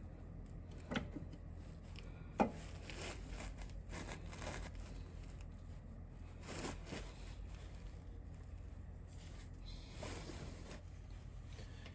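Faint handling of tools and parts: two light knocks, the second and louder about two and a half seconds in, then scattered soft rustles and scrapes over a low steady hum.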